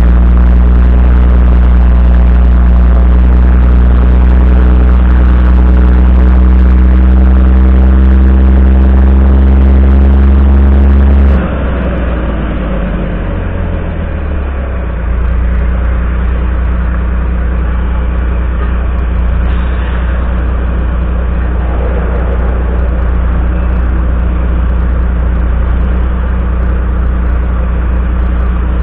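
Volvo FMX 440 truck's six-cylinder diesel engine running under load, its pitch slowly rising while the rig moves. About eleven seconds in the sound cuts abruptly to a quieter, steady engine note.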